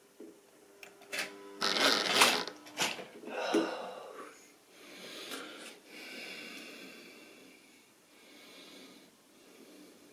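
Model railway diesel locomotive hauling container wagons along the track: a loud burst of clicking and rattling about one to four seconds in, then a steady whirr that gradually fades.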